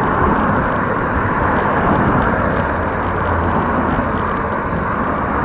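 Steady rushing noise of a bicycle being ridden: wind across the microphone and tyres rolling.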